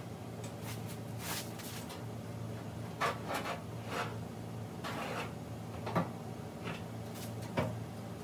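Front fender of a Chevy C10 being handled and pressed into place against the body and radiator support, giving scattered clunks and scrapes, with sharper knocks about three, six and seven and a half seconds in. A steady low hum runs underneath.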